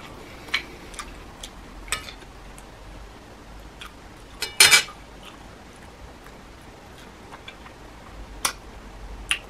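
Cutlery clinking and scraping against a plate: a loud clatter of several clicks about four and a half seconds in, with scattered lighter clicks around it.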